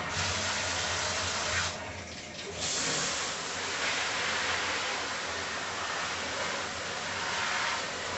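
Water running hard, starting suddenly, easing briefly about two seconds in, then running on steadily.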